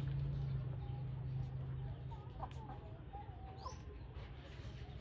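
Chickens clucking with scattered short calls, over a steady low hum that drops in level about two seconds in.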